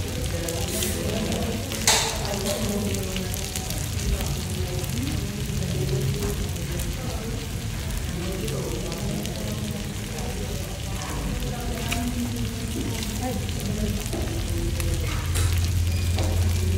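Pork slices and prawns sizzling steadily on a tabletop Korean-barbecue grill pan, with a sharp click about two seconds in.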